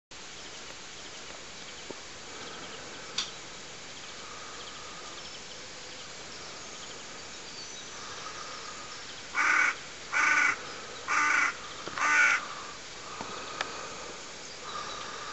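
A crow cawing four times, about a second apart, over faint bird chirps and steady outdoor background noise.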